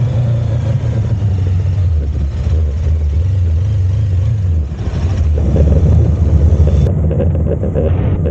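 Motorcycle engines running as the bikes pull away at low speed, a steady low rumble that grows louder about five seconds in.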